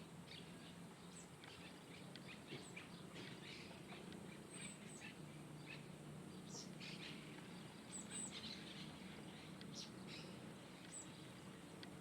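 Small yellow birds chirping: many short, high chirps scattered throughout, faint, over a steady low hum.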